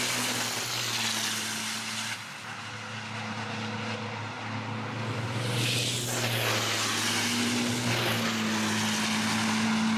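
Racing truck diesel engines running hard as two race trucks pass close together, with a steady low engine drone. A brief hiss comes a little after halfway.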